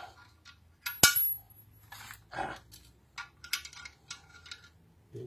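Small steel parts clinking against a lawn mower blade as a washer and nut are fitted onto the blade bolt. One sharp metallic clink rings briefly about a second in, followed by lighter clicks and rattles.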